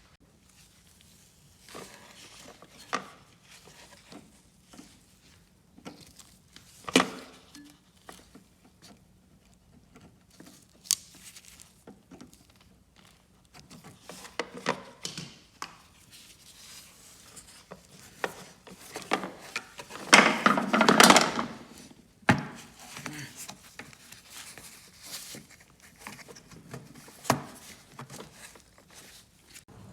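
Hands and tools working the fuel hose and its clip off a lawnmower carburetor: scattered clicks and knocks, with a longer stretch of clattering handling noise about twenty seconds in.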